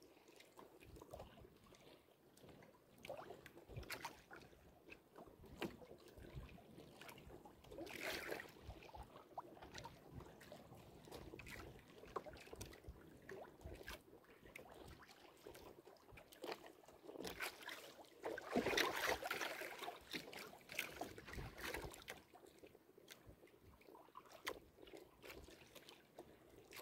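Faint paddle strokes and water lapping against the hull of a small outrigger canoe being paddled over choppy sea, with a louder rush of water about two-thirds of the way through.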